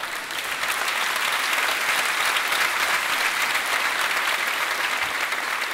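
Theatre audience applauding steadily after a comedian's punchline; the applause cuts off suddenly at the end.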